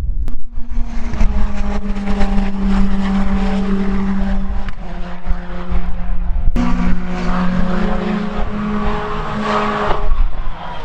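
Praga R1 T race car engine running hard on track, holding a fairly steady high note with a couple of sudden breaks, then falling in pitch near the end.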